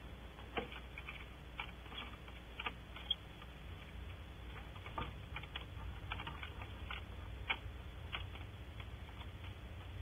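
Scattered sharp, irregular clicks and ticks, several a second at uneven spacing, over a steady low hum.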